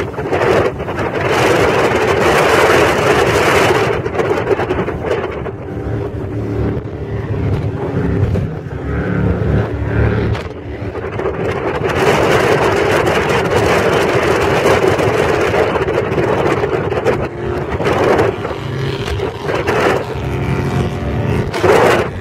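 Powerboat running at speed: a loud, steady rush of wind and spraying wake, with the drone of the engines coming through about six seconds in and again near the end.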